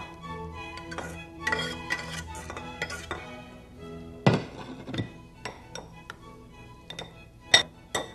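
Soft background music for the first few seconds, then a metal utensil clinking against a glass mixing bowl in irregular taps as an egg, ham and cheese mixture is stirred.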